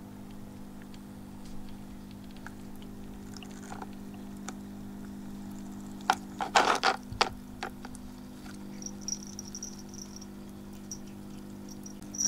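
Electric pet water fountain running: a steady pump hum with water trickling over the lid. About six seconds in, a quick run of loud clicks and knocks as ice cubes floating in the bowl are pawed and knock against the plastic, and faint short high chirps repeat in the last few seconds.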